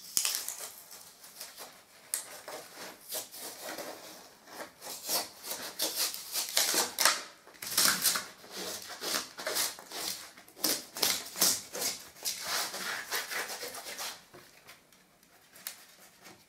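Metal filling knife cutting and scraping cured expanding foam back from the gap along the top of a skirting board: a run of short, irregular scraping strokes, several a second.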